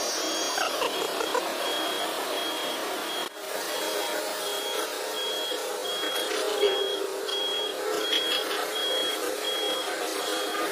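Heavy-equipment warning alarm beeping steadily in short, high single tones, about three beeps every two seconds. Underneath runs a steady noise of a running machine.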